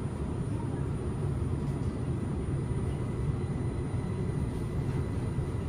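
Interior running sound of a Linimo 100-series HSST maglev train in motion: a steady low rumble with faint, steady high whining tones from its electrical drive.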